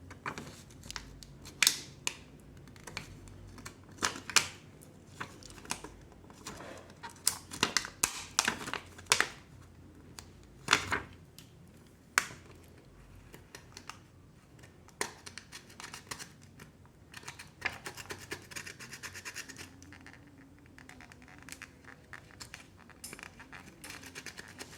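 Small tools clicking and scraping against a phone's casing and parts as a technician works at a stubborn screw and glued-on back. Sharp, irregular clicks, with a stretch of quick scratching a little past the middle.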